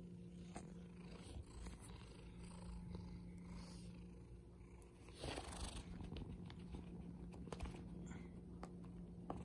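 Domestic cat purring steadily while being stroked and massaged by hand, with a brief rustle of handling about five seconds in.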